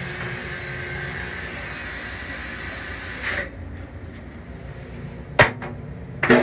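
Steady hiss of a railcar toilet flush that cuts off abruptly with a short burst about three seconds in, over a low rumble. A sharp click follows about two seconds later, and another loud burst starts right at the end.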